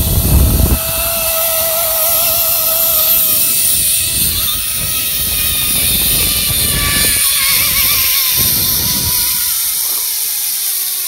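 Zipline trolley pulleys running along the cable: a steady whirring whine over a rushing noise, the pitch falling near the end as the rider slows toward the landing platform.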